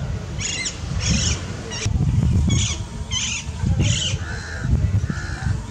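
A bird calling again and again: six short calls in the first four seconds, then two lower, steadier calls near the end. Under them runs a loud, gusting rumble of wind on the microphone.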